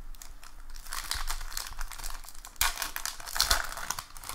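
Plastic foil wrapper of a 2019 Bowman baseball card pack crinkling as it is torn open and the cards pulled out, in two spells of crinkling, the second louder, about a second and about three seconds in.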